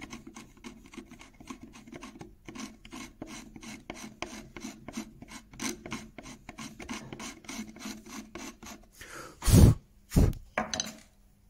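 A chisel blade scraping old glue off the edge of a wooden clock bracket shelf, in quick repeated strokes of about four a second. Near the end come two much louder short bursts about half a second apart.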